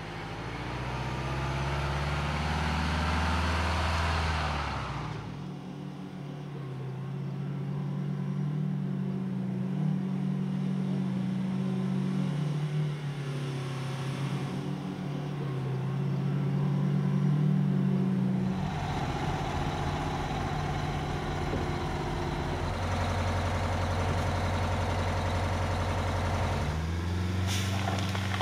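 Oshkosh LVS truck's two-stroke V8 diesel engine running. It revs up and falls back a couple of seconds in, runs steadily, then revs again near the end as it pulls a downed tree on a chain.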